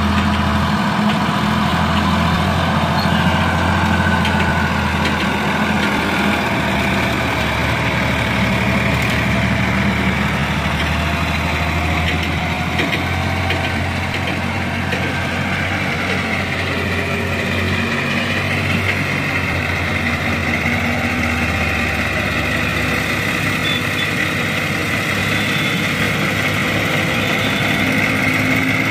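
Diesel engine of a Swaraj farm tractor running steadily under load as it hauls a trailer full of sand up a dirt slope. There is a slight change in engine note partway through.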